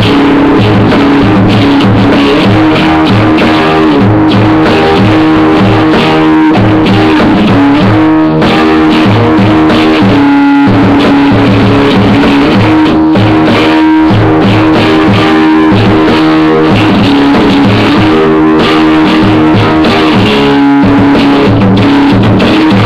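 Guitar music in a rock style, played loud: sustained chords over a steady repeating low rhythm.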